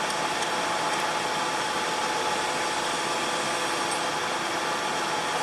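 Shop fan blowing: a steady, even rush of air noise with a faint hum.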